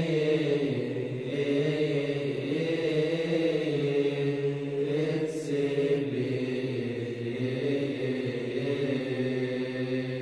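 Religious chant: voices holding long, drawn-out notes that move slowly in pitch, played as background music.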